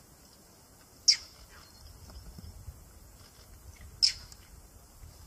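Two short, sharp, high-pitched animal chirps about three seconds apart: an alarm-type call.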